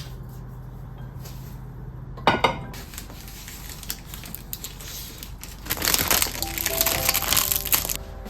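Household handling sounds over soft background music: a short clatter about two seconds in, then about two seconds of dense crackling noise that stops near the end.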